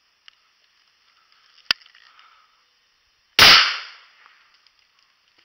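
.410 shotgun fired once, a single sharp blast about three and a half seconds in that dies away over most of a second. A sharp click comes a couple of seconds before it.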